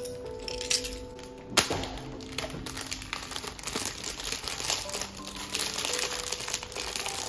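Clear plastic packaging bag crinkling as it is handled and opened, with one sharp click about a second and a half in. Soft background piano music plays throughout.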